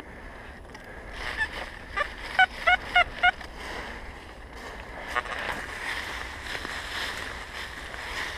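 XP Deus metal detector sounding a quick run of four short beeps as the coil passes over a buried target, after a few fainter ones. In the second half, leaf litter rustles and scrapes as the spot is dug into.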